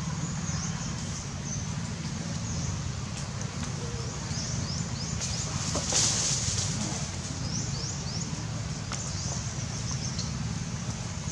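Outdoor ambience: a steady low rumble under many short, high chirps, with a brief burst of hiss about six seconds in.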